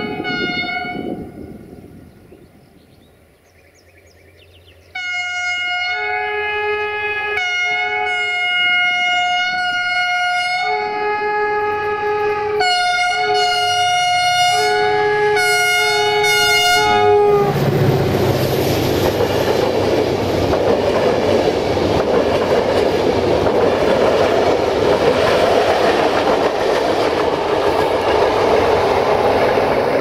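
CFR Class 64 (GM) diesel locomotive 64-1125-5 sounding its multi-tone horn. One blast ends about a second in. From about five seconds in comes a string of blasts that switch between chords, lasting to about seventeen seconds in. Then the locomotive and its passenger coaches pass close by, loud, with engine noise and wheels clattering over the rail joints.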